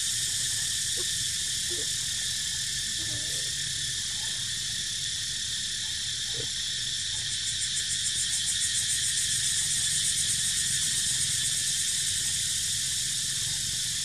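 Steady, high-pitched drone of a forest insect chorus, which pulses quickly for a few seconds in the middle. A few faint, short, low calls sound underneath in the first half.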